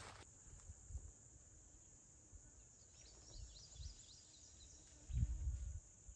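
Quiet rural outdoor ambience: a steady high insect drone, with a quick series of short bird chirps about three seconds in and a brief low rumble about five seconds in.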